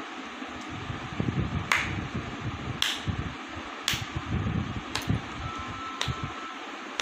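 Steady hiss of an electric fan running, with sharp clicks about once a second and soft low bumps in between.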